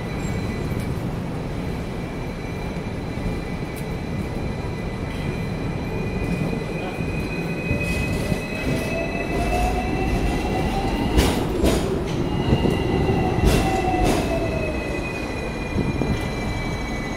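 Hong Kong double-decker electric tram running along its rails, with a thin high wheel squeal throughout and a lower whine that rises and then falls. A few sharp clanks from the wheels on the track come about two-thirds of the way through.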